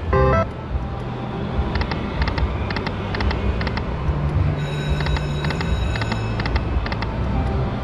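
Buffalo Gold video slot machine playing a spin: a short electronic chime, then a quick, even series of reel-stop clicks, about three a second, with a high ringing tone in the middle, over a steady low casino-floor hum.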